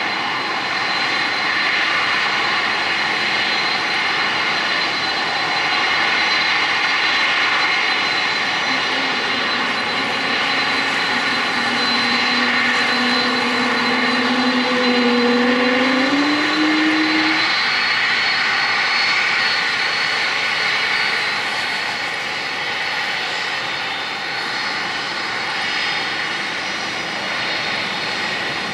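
Boeing 747-400F jet engines running loud and steady, a rushing roar with a high whine, swelling slightly toward the middle and easing near the end. A lower hum runs through the middle and rises in pitch just before it stops.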